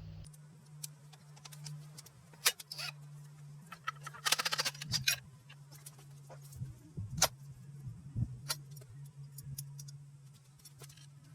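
Scattered light metallic clicks and clinks from small parts and tools being handled, with a short fast rattle a little over four seconds in, over a steady low hum.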